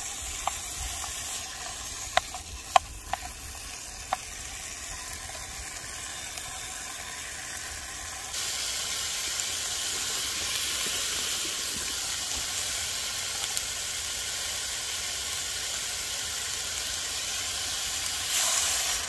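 Rice balls and sliced pastrami sizzling in a camping frying pan, with chopsticks clicking sharply against the pan a few times in the first seconds. The sizzle gets louder about eight seconds in, and near the end water poured into the hot pan gives a brief louder hiss.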